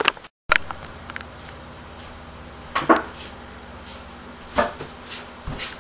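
A few separate knocks and thuds, about a second or more apart, over a steady low hum, in a small room. A click and a brief dropout at the very start mark an edit.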